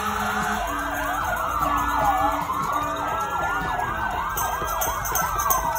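Several emergency-vehicle sirens wailing and yelping over one another, with short steady horn-like blasts in between.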